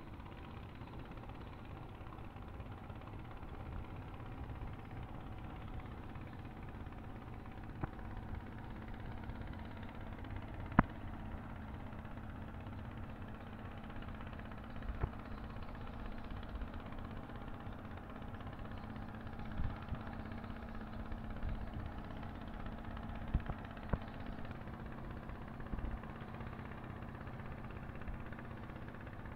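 Boat engine idling steadily, a low continuous hum, with a few short sharp knocks scattered through it, one louder about 11 seconds in.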